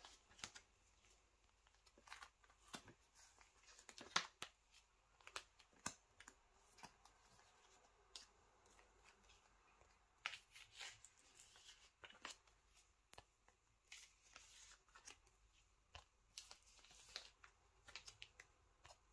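Faint, scattered clicks and rustles of photocards and plastic card sleeves being handled, with a few sharper taps about four and ten seconds in.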